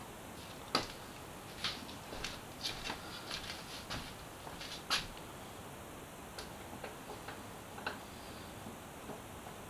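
Scattered light clicks and taps from a hand tool and plastic parts while the screws holding the windscreen on a Yamaha FZ6R's nose fairing are worked out. The ticks come at irregular intervals, with sharper ones about a second in and about five seconds in.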